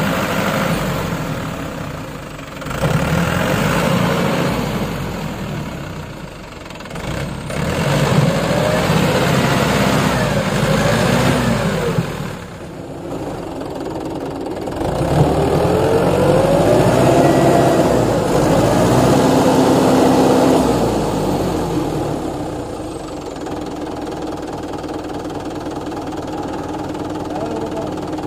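Mahindra 595 tractor's diesel engine revving up and down in repeated surges under heavy load while the tractor works through deep paddy-field mud. About three-quarters of the way through it drops back to a lower, steadier run.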